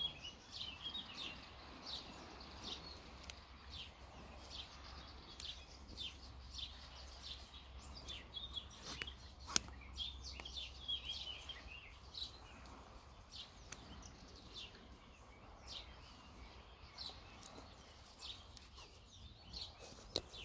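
Small birds chirping repeatedly in short calls, over a low steady background hum. A few sharp clicks come from handling a sandal's webbing strap and buckle, the loudest about halfway through.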